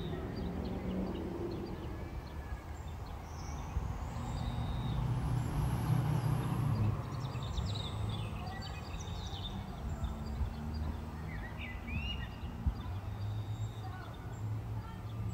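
Outdoor ambience: scattered bird chirps over a low, steady background rumble that swells for a few seconds around the middle.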